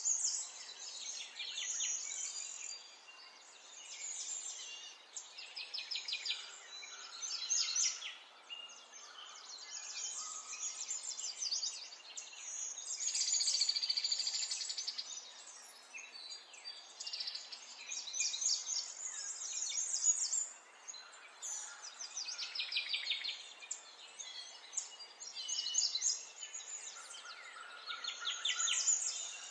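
Birds chirping and trilling over and over in high, quick runs of notes, over a faint steady hiss.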